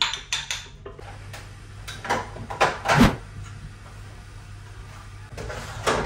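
Glass jars and other groceries being handled and set into a fridge's door shelves: a series of clinks and knocks, the loudest about three seconds in.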